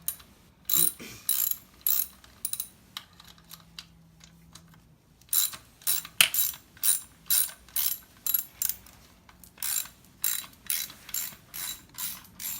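Hand ratchet wrench clicking in quick back-and-forth strokes, about two or three clicks a second, in three runs with short pauses between.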